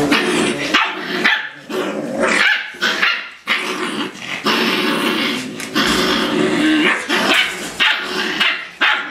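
Eight-week-old Rottweiler puppies play-fighting, growling and barking in a run of rough, repeated bursts.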